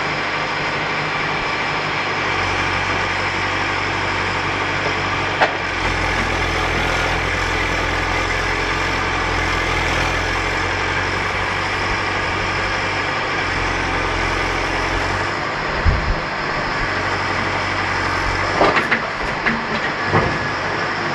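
Volvo BM EL70 backhoe loader's diesel engine running steadily as the backhoe arm digs, with a heavier low drone from about two seconds in until about fifteen seconds. A few short knocks come about five seconds in, at sixteen seconds, and several near the end.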